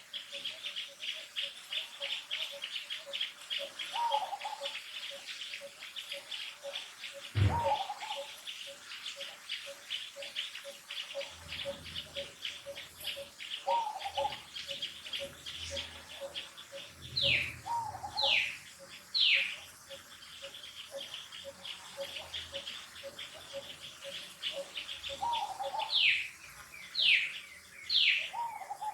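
Birds chirping continuously in dense, rapid, repeated calls, with a short call recurring every few seconds and several louder falling calls in the second half. A single sharp knock sounds about a quarter of the way in.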